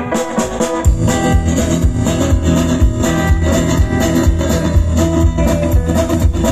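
Rockabilly band playing live on upright bass, drums and guitars. A guitar lead-in gives way to the full band, with bass and beat, about a second in.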